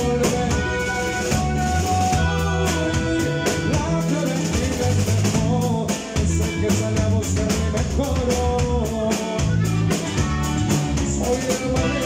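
Live band playing: guitar over a drum kit keeping a steady beat, with held melody notes.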